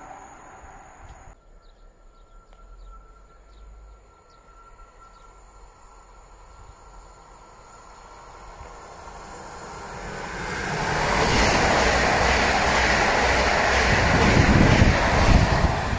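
A PKP Intercity electric multiple unit approaches and passes at speed. Its rushing wheel and air noise builds from about nine seconds in and is loud from about eleven seconds on, with a deeper rumble as the carriages go by near the end.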